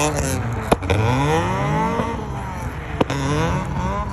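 VAZ Zhiguli's four-cylinder engine revving up and down as the car drifts, its pitch falling, rising, falling and rising again. Two sharp clicks stand out, about a second in and near three seconds.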